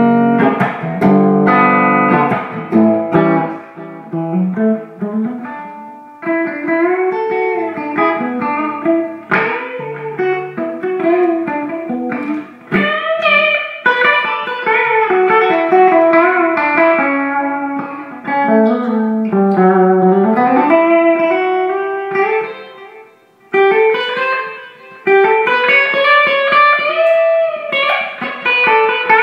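Electric guitar played through a 36-watt 6V6 tube amp head with a 1959-voiced preamp into a Marshall 4x12 cabinet loaded with Celestion Greenback speakers, volume at 4–5 for a cleaner, higher-headroom tone. It opens with chords, then moves to single-note lead lines with string bends, and pauses briefly near the end.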